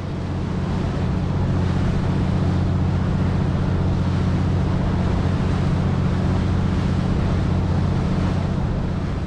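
Small motorboat underway: its engine runs with a steady low drone, mixed with wind on the microphone and the rush of water along the hull.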